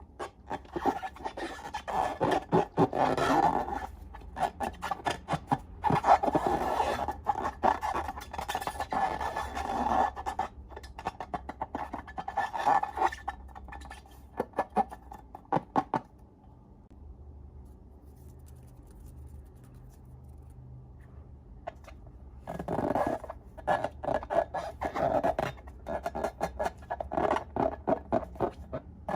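Slime being mixed and squished by hand, with dense crackling and clicking in long stretches. It pauses for several seconds past the middle, then starts again.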